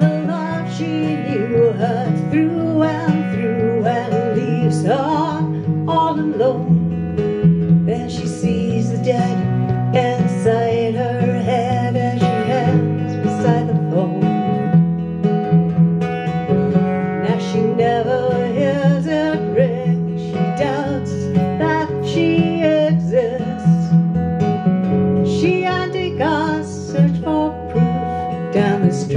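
Steel-string acoustic guitar strummed and picked together with an electric bass line through a small bass amp, playing a song steadily without a break.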